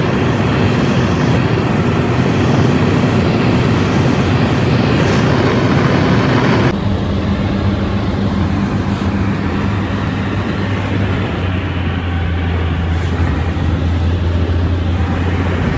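Steady engine drone and road noise inside a car cruising on a highway. About seven seconds in the sound changes abruptly to a lower, steadier hum with much less hiss.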